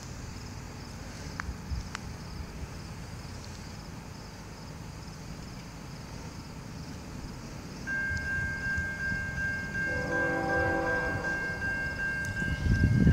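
Insects trill quietly until, about eight seconds in, a level-crossing warning bell starts ringing steadily. About two seconds later a train horn sounds one long blast, and a low rumble from the approaching train builds near the end.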